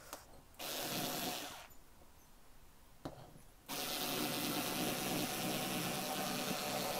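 Bosch IXO cordless screwdriver with its rotary cutter attachment whining as it cuts through double-thickness t-shirt knit fabric. It runs in two short bursts, then steadily for about four seconds: the stop-start of the cutter struggling to get going in the knit before it cuts once started.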